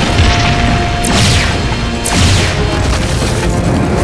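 Cartoon action sound effects: booms and blasts with whooshes falling in pitch about one and two seconds in, over action music.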